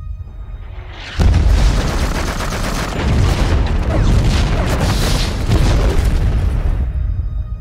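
War-film battle sound effects: a low rumble, then a heavy boom about a second in, followed by a dense din of explosions and gunfire that eases off near the end.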